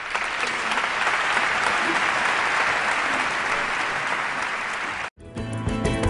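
Audience applauding steadily for about five seconds. The applause cuts off abruptly and gives way to choir and instrumental music.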